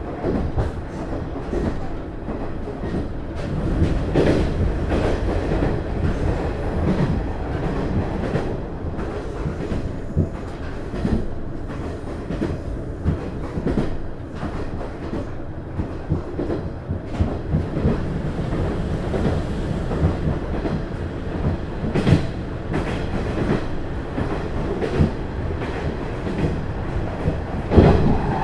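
Cabin running noise of the JR East KiHa 110 diesel railcar KiHa 110-135 under way: a steady low rumble from its DMF14HZA diesel engine and running gear, with the wheels clacking over rail joints. A louder clack comes about 22 seconds in and another near the end.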